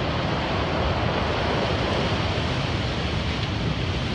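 Heavy winter storm surf at high tide, waves breaking and churning in a continuous rumbling wash, with wind buffeting the microphone.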